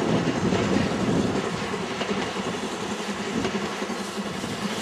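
BR Standard Class 2 2-6-0 steam locomotive No. 78019 hauling a train of coaches past, a steady even rumble of the engine and the train running on the rails.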